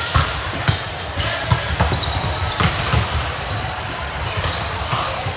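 Volleyballs being hit and bouncing on a gym floor: irregular sharp smacks, a few each second, over a steady low rumble of gym noise.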